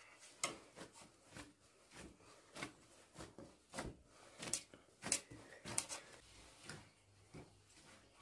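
Irregular knocks and clacks, about one or two a second, some sharp and some duller, with no steady sound underneath.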